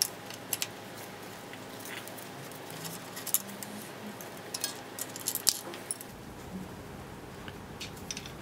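Light metallic clicks and clinks of a 10 mm wrench and a 5 mm Allen wrench working a bolt on an e-bike's rear frame as it is loosened. The clicks are scattered, with a quick cluster about halfway through.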